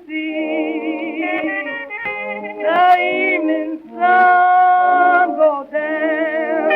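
A 1920s acoustic blues recording: a woman's blues vocal over reed organ, with cornet. The notes are held long, some with a wavering vibrato, and there are short breaks between phrases.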